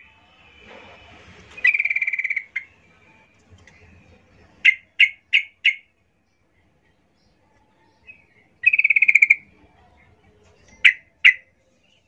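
Female yellow-vented bulbul calling to draw in males: two quick chattering rattles, one about two seconds in and one about nine seconds in, with a run of four short sharp notes between them and two more sharp notes near the end.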